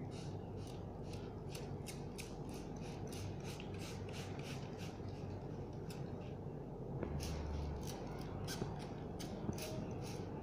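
Hand trigger spray bottle squirting water in quick short hisses, about three a second, with a pause of a couple of seconds midway before the squirting resumes.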